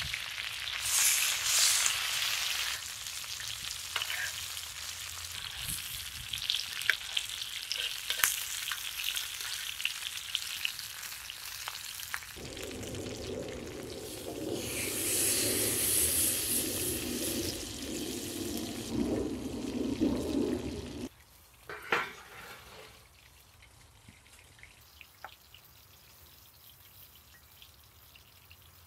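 Ribeye steak sizzling hard in butter in a cast iron skillet over a campfire, with sharp clicks of a metal spatula and fork against the pan; the sizzle swells loudest about halfway through. About two-thirds of the way in it cuts off to quiet, with one sharp knock and a few faint small clicks.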